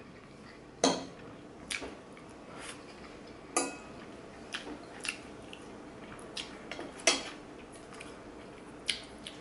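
Metal fork clinking and scraping against a ceramic plate while twirling spaghetti: a string of sharp clinks about once a second, a few ringing briefly.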